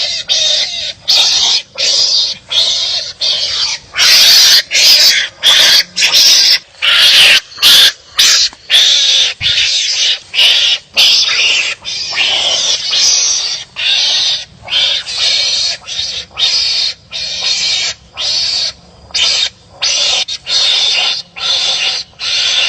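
Wild animals barking at each other in a rapid, unbroken series of harsh, raspy barks, about two a second. The loudest stretch comes about 4 to 8 seconds in.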